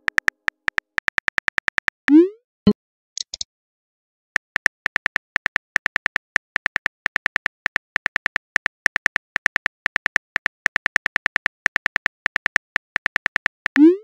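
Rapid phone keyboard typing clicks, broken about two seconds in by a rising swoosh of a text message being sent and a short pause, then a long run of typing that ends in another send swoosh.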